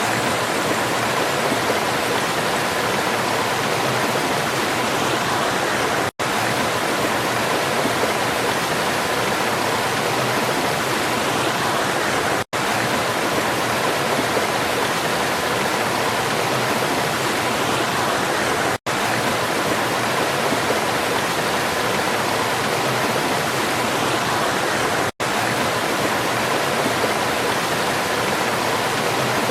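Waterfall: water falling and rushing steadily, a dense unbroken roar of splashing, cut by a brief silent gap about every six seconds.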